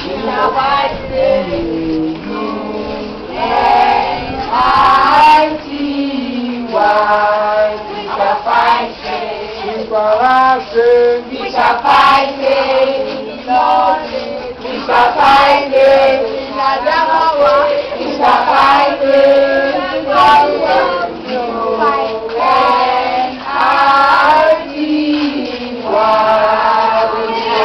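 A group of voices, mostly women's, singing together in phrases, with a few sharp hits standing out over the singing.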